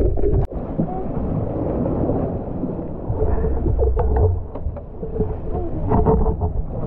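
A steady low rumble, with a few short knocks and clatters as gear is handled in a wooden fishing boat, twice near the middle and again near the end.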